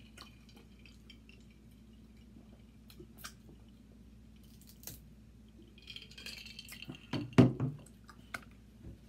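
Quiet eating sounds: a few sparse small clicks from picking apart seafood shells, a short crackly stretch about six seconds in, and one loud dull knock about seven and a half seconds in.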